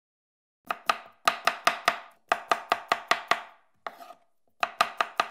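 A knife chopping quickly on a cutting board, about five sharp strokes a second in runs of five or six with short breaks between them.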